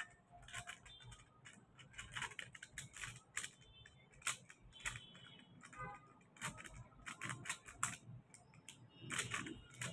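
Metallic foil paper crinkling and crackling in the hands as it is folded and creased, in short irregular crackles.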